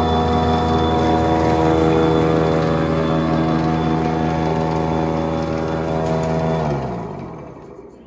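PowerSmart 80V battery-powered two-stage snowblower running steadily with a loud, even electric motor whine as it clears slushy snow. Near the end it is shut off: the pitch falls and the sound fades as the motor and auger spin down.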